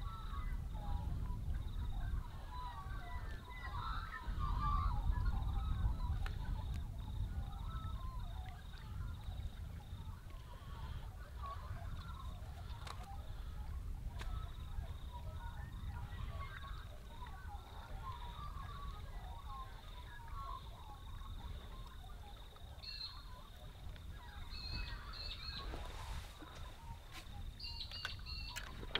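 Outdoor ambience: a low wind rumble on the microphone, with small birds chirping in the background. A few light clicks come near the end.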